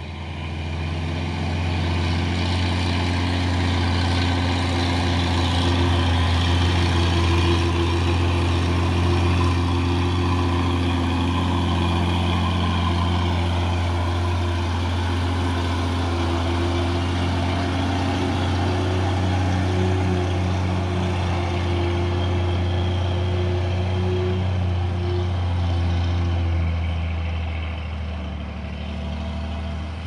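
Heavy truck's diesel engine running steadily with a deep drone, pulling slowly up a steep grade under load; it eases slightly near the end.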